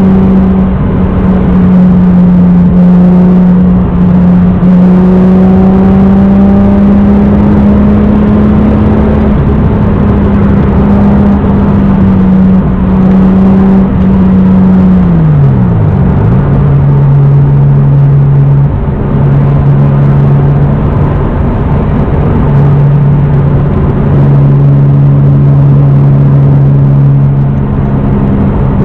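Naturally aspirated Toyota Supra Mk4's 3.0 inline-six (2JZ-GE) with a full aftermarket exhaust, cruising at steady revs; about halfway through the revs drop sharply in an upshift and the engine settles to a steady, lower drone.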